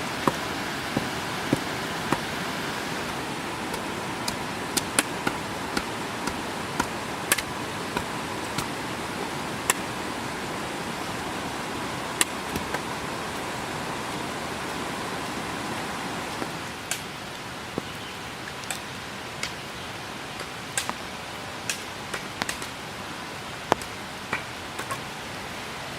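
Steady rain hiss with irregular sharp drops pattering close by. The hiss eases slightly about two-thirds of the way through.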